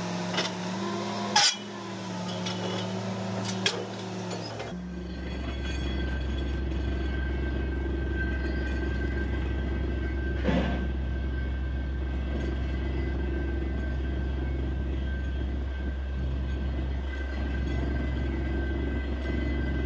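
Truck-mounted borewell drilling rig running steadily, its engine and machinery giving a continuous drone with a few sharp metal knocks in the first four seconds. About five seconds in, the sound changes abruptly to a deeper, steadier drone.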